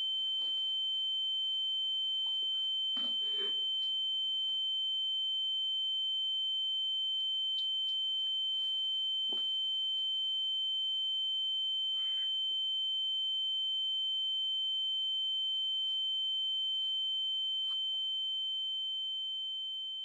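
A steady, high-pitched ringing tone with a fainter, lower tone beneath it: a film's ear-ringing effect for a dazed character coming round. It fades out at the end.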